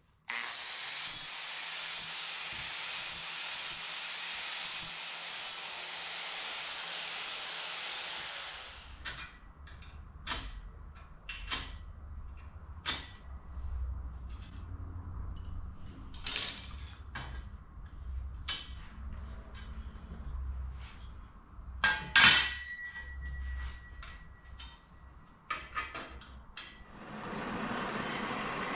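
Angle grinder with an abrasive disc running on steel square tubing for about eight seconds, then stopping. After it come scattered knocks and clanks of steel tubing being moved and set down, with one loud metallic clang that rings on briefly about 22 seconds in. Near the end a steady machine sound starts, a horizontal metal-cutting bandsaw running.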